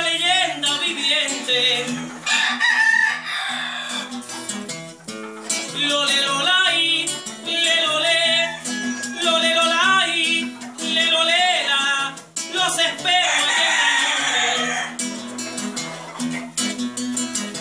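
A man singing with a strummed nylon-string acoustic guitar, while roosters in nearby cages crow over the music at times, most clearly about two seconds in and again around thirteen seconds in.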